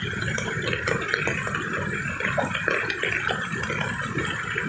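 Swollen brown floodwater rushing past in a torrent: a steady churning rush of water with small crackles through it.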